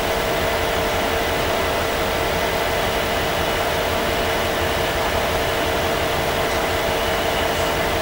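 Heavy rain falling steadily, a constant hiss with a steady hum underneath.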